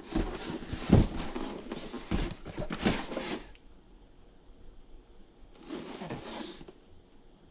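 Cardboard product box being handled and its printed sleeve slid over the inner box: rubbing and scraping of cardboard with two sharp knocks, about a second in and near three seconds, then a shorter bout of rubbing around six seconds.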